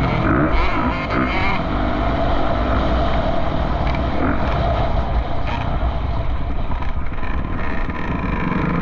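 A vehicle engine running steadily, its pitch wavering up and down briefly in the first second or so.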